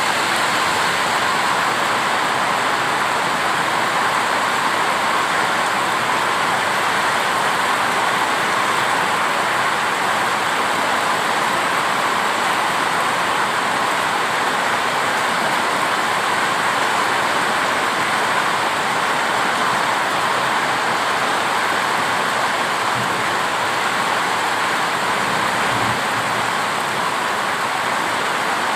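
Heavy rain pouring steadily: a loud, even rush of rainfall that stays the same throughout, easing slightly near the end.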